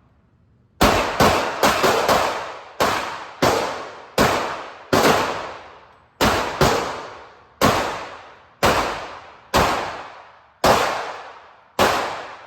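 Pistol fire in an indoor range: about fifteen sharp shots at an uneven pace, some in quick pairs. Each shot rings off in a short echo.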